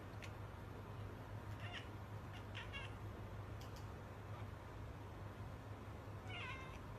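Cat giving small, high-pitched meows: two short ones about two seconds and two and a half seconds in, and a longer wavering one near the end. A few faint ticks can be heard between the calls.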